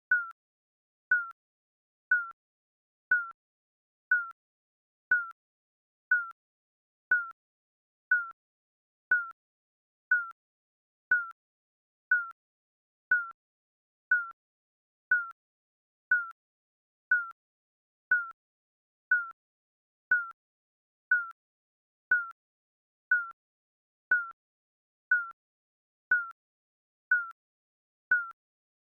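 Digital countdown timer beeping once a second: a short, slightly falling electronic beep ticking off each second, with silence between beeps.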